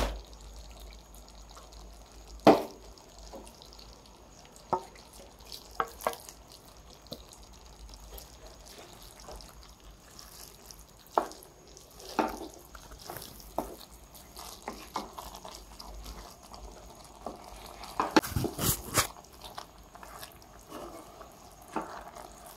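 Wooden spatula stirring wet sprouted moth beans and coconut-onion paste in a kadhai: soft, wet stirring with scattered knocks and scrapes against the pan, busiest around a third of the way in and again near the end.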